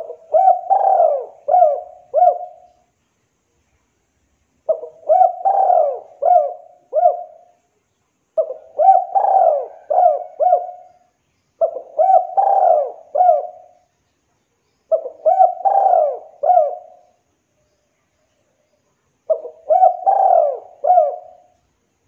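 Spotted dove singing its cooing song: six phrases of a few coos each, every phrase lasting about two and a half seconds, with a short pause between phrases.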